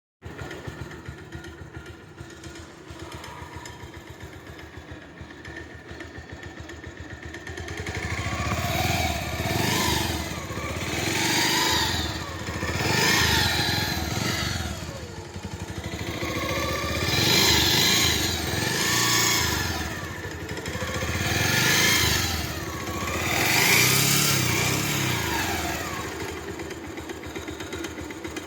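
Bajaj Pulsar 150's single-cylinder engine idling steadily, then, from about eight seconds in, revved up and let back down again and again, roughly every two seconds.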